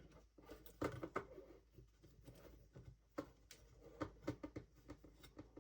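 Faint, irregular clicks and rustles of a limit strap being handled and looped around the bars of an RC snowmobile skid.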